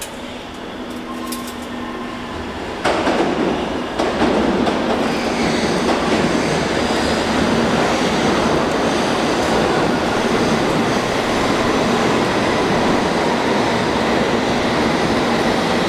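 London Underground S Stock train running into the platform: rail noise grows louder, jumps up sharply about three seconds in, and then holds as a steady loud rush of wheels on track as the train passes alongside.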